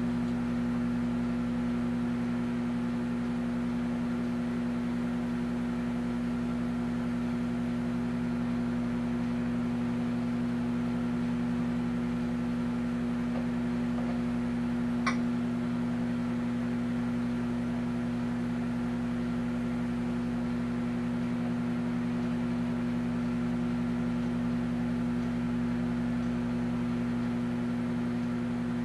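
Amazon Basics 0.7 cubic ft microwave oven running a cooking cycle: a steady, unchanging hum with its fan. A single brief tick about halfway through.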